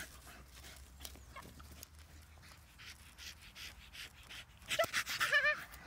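Staffordshire bull terrier panting hard while chasing a flirt pole lure, with a couple of short high whines about five seconds in.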